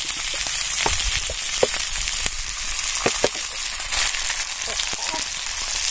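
Masala-coated fish frying in oil on a flat iron pan: a steady high sizzle with a few scattered pops and crackles.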